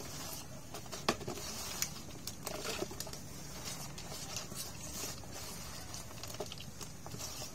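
Hands gathering small wet fish in a plastic basin and dropping them into a plastic mug: irregular soft clicks, taps and wet slaps of fish on plastic.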